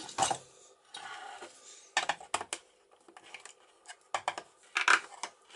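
Small metal parts of a sailboat cabin lock clicking and scraping as they are worked by hand, with light scraping and quick clusters of sharp clicks about two seconds in and again around four to five seconds in.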